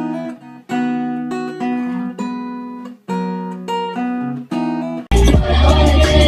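Acoustic guitar playing chords in short phrases with brief gaps between them. About five seconds in it cuts abruptly to different music with a heavy bass.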